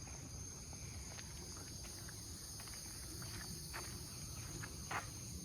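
Steady high-pitched insect chorus of summer crickets or cicadas, with a few short soft scuffs in the second half.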